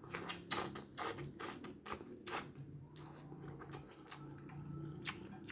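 Close-up wet chewing and mouth smacks of a man eating a mouthful of noodles by hand. The smacks come thick and fast for the first two seconds or so, then sparser.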